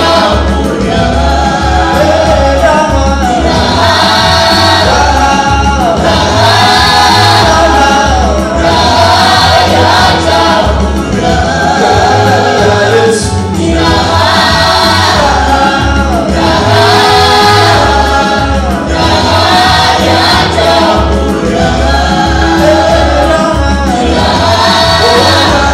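Gospel music: a choir singing over an accompaniment with a steady bass beat.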